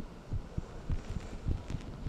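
Human heartbeat: low, muffled thumps repeating in a steady rhythm.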